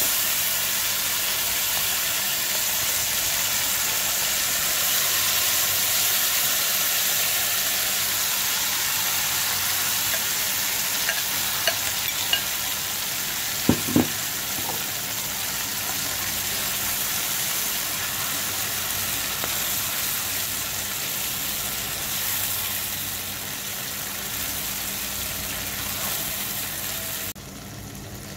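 Marinated prawns sizzling in hot mustard oil in a wok: a steady frying hiss, with a few short clicks and knocks about halfway through. The sizzle drops off just before the end.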